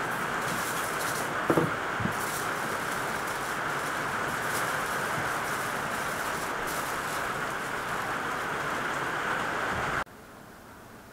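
Aluminium foil crinkling and crackling as it is wrapped by hand around potatoes, over a steady hiss, with a couple of light knocks about a second and a half and two seconds in. The sound drops off suddenly near the end.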